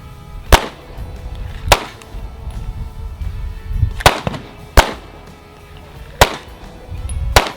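Six gunshots at uneven intervals, each a sharp crack, over background music.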